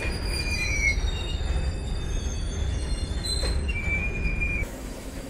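Ballast hopper wagons rolling past on the rails: a steady low rumble with thin high wheel squeals at the start, about a second in, and again near 4 s. The rumble drops off sharply near the end.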